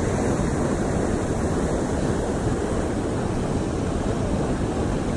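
Steady rushing noise of wind buffeting the microphone over moving river water, heaviest in the low range with no distinct events.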